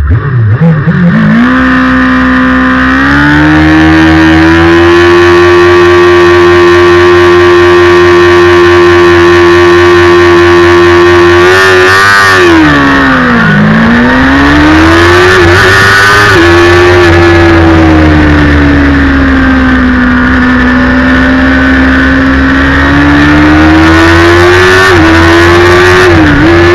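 Onboard sound of a 2009 Kawasaki ZX-6R's 600 cc inline-four race engine pulling away from the start, its revs climbing quickly through the gears and then holding high and steady. About halfway the pitch drops sharply and climbs back as the bike slows for a corner and accelerates again, and it sags and rises once more near the end.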